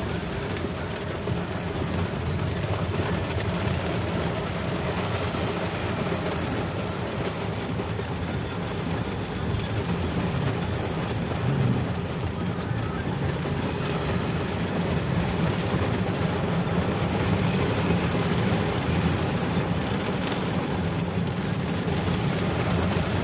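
Steady engine and road noise of a vehicle on the move.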